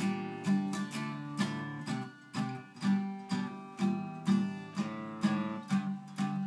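Acoustic guitar strummed in a steady rhythm, about two strums a second, with no singing: an instrumental break in a song.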